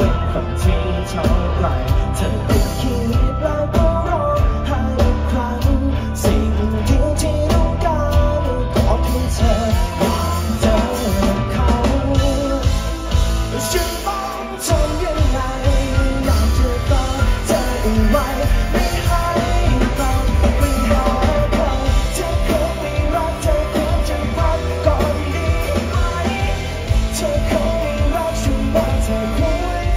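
Thai rock band playing live: a male lead vocal sings over electric guitar, bass, drums and keyboards, recorded from the crowd, with a heavy bass. The bass and drums drop out briefly about halfway through, then the full band comes back in.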